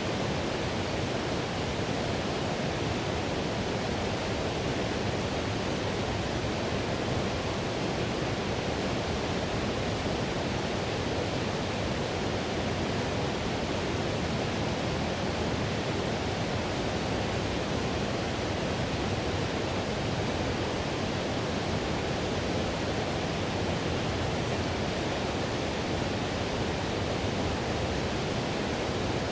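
Whitewater on the Payette River rushing over rocks: a steady, unbroken roar of moving water.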